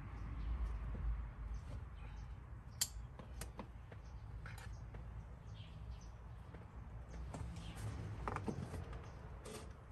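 Scattered small clicks, knocks and rustles of hands working a fabric seat cover, its straps and plastic clips around a car seat, over a low steady rumble, with one sharper click about three seconds in.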